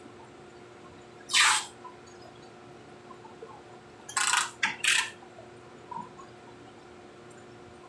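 Clear adhesive tape pulled off its roll in three short rips, one about a second in and two close together around four to five seconds in, over a steady machine hum.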